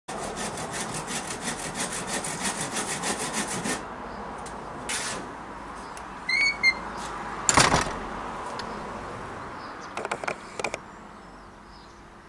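Hand saw with a green handle cutting through a wooden board in quick, even back-and-forth strokes, stopping at about four seconds. After it come a short high chirp, then one loud knock about halfway through, and a few light clicks.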